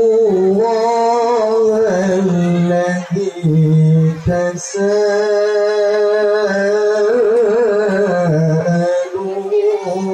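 A young man's solo voice sustaining a long, wavering, ornamented melody into a microphone, amplified over a PA, with a short break for breath about four seconds in.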